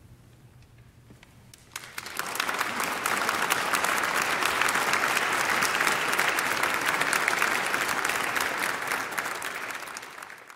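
After a quiet couple of seconds, an audience starts clapping, quickly building to steady applause from a full house, which fades out near the end.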